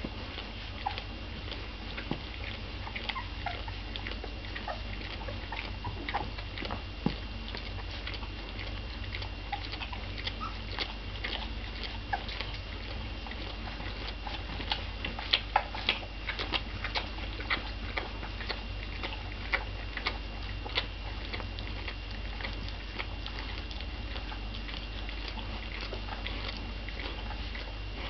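Bernese mountain dog puppies nursing and the mother dog licking them: scattered wet smacking and licking clicks, thickest about halfway through, with a few faint puppy squeaks.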